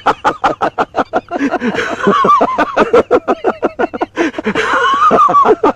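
Two men laughing heartily in a long run of rapid ha-ha bursts, several a second.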